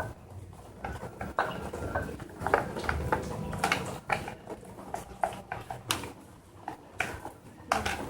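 Irregular light clicks and taps, roughly one or two a second, from handling plastic containers and a utensil while adding starch to glue to make slime.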